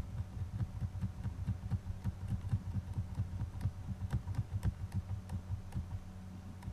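Computer mouse clicks and irregular low thumps of handling at the desk over a steady low electrical hum; the thumps and clicks stop about six seconds in.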